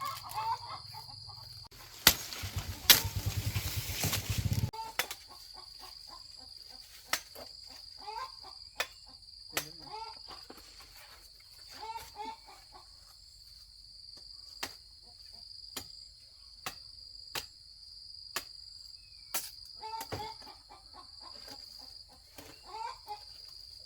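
Insects trilling steadily at a high pitch. A loud, noisy rustling burst comes a couple of seconds in, followed by scattered sharp knocks and a few short chicken calls.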